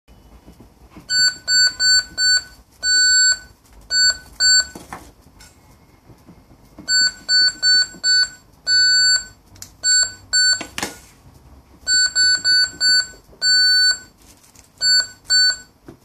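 G5 GSM alarm panel beeping as its touch keypad is pressed: short, high beeps, one per key. The same pattern comes three times: four quick beeps, one longer beep, then two short beeps.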